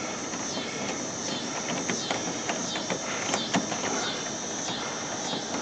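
Scattered light metallic clicks of a hand tool backing out a loose screw, over a steady hiss.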